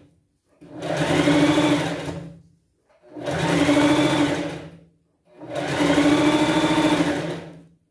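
Sewing machine stitching a waistband seam in three short runs of about two seconds each, each speeding up and then slowing to a stop, with brief pauses between them.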